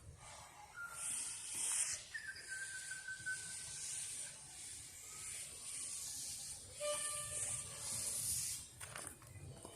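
Narrow-gauge steam locomotive hissing steam. The hiss starts about a second in, holds steady, and dies away near the end, with a few faint, brief tones over it.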